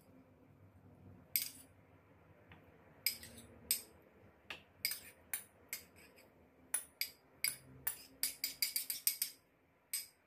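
Metal utensil clinking against a serving bowl as chicken and pork adobo is scooped out, in scattered sharp taps that come in a quick run about eight to nine seconds in.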